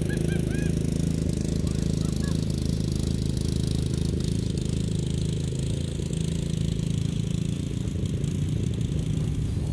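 Riding lawn mower engine running steadily as it tows a stripped car across a lawn on a strap, easing slightly toward the end. A few short bird chirps come right at the start.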